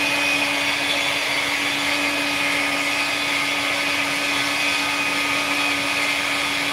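NutriBullet blender motor running at a steady speed, blending a thick fruit smoothie in its jar, with a constant hum over a whirring rush.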